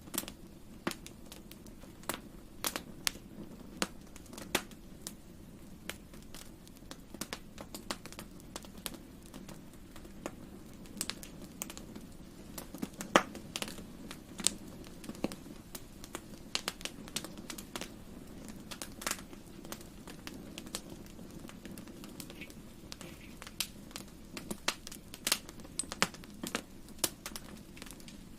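Wood fire crackling in a fireplace: irregular sharp pops and snaps over a soft steady low rumble.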